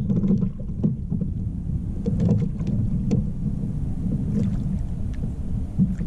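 Wind buffeting the microphone and small waves slapping against the hull of an Old Town Sportsman PDL 120 pedal kayak, a steady low rumble with a few light knocks.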